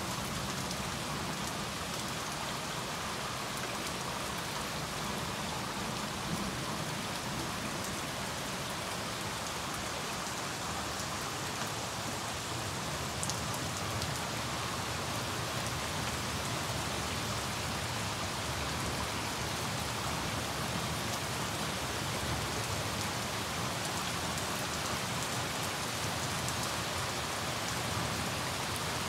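Heavy rain falling in a steady downpour, an even hiss of rain on pavement and plants.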